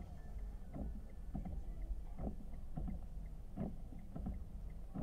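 Windscreen wipers sweeping over a rain-wet windshield, heard from inside a car, with a soft thump at each stroke roughly every three-quarters of a second over a low engine hum.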